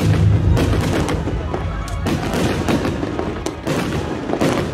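Aerial fireworks bursting overhead: a deep boom near the start, then a rapid run of sharp bangs and crackles.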